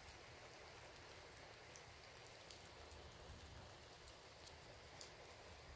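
Near silence: faint night insects chirping, a high pulse repeating evenly about three times a second over a low, steady background rumble.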